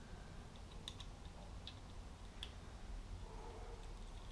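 A few faint, light clicks of small hardware and a plastic camera housing being handled.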